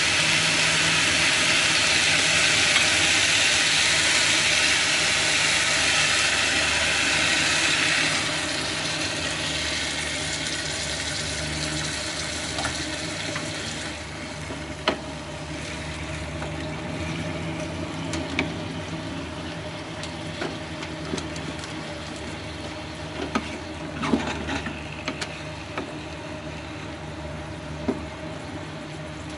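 Daikon and pork frying in a pan, sizzling loudly as the seasoning sauce is poured in; the sizzle dies down after about eight seconds and softens again a few seconds later. A wooden spatula then stirs the pan, with scattered knocks against it.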